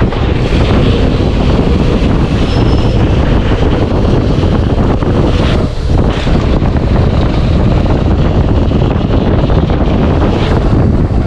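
Steady heavy wind buffeting on the microphone of a mountain bike riding fast downhill, with a brief lull about six seconds in.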